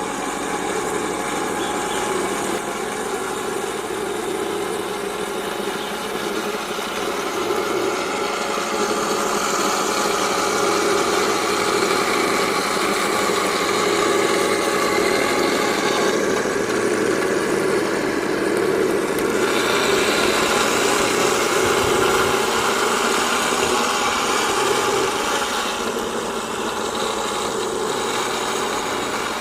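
MATO 1/16 all-metal Tiger I RC tank running with its engine sound effect playing, a steady engine rumble with little deep bass. It gets somewhat louder about eight seconds in.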